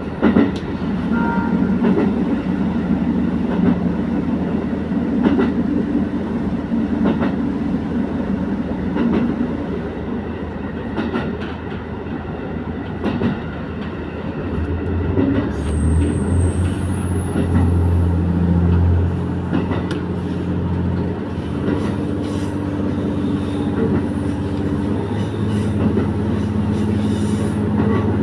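Diesel railcar running along the line, heard from inside the carriage: a steady engine drone whose pitch steps up and down partway through, with wheels clicking over rail joints.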